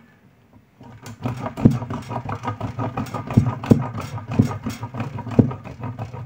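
A bar of soap being grated on a coarse side of a stainless-steel box grater: rhythmic rasping strokes, about two a second, starting about a second in.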